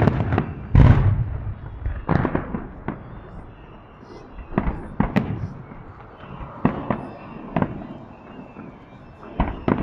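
Aerial firework shells bursting, a dozen or so sharp bangs at uneven intervals, the biggest and deepest about a second in.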